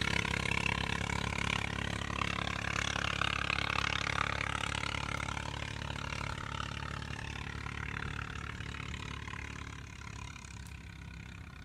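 An engine running steadily and slowly growing fainter, as if moving off into the distance.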